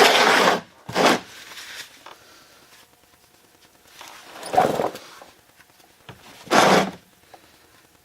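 Short rasping, scraping handling noises, four of them, each about half a second long, with quiet between.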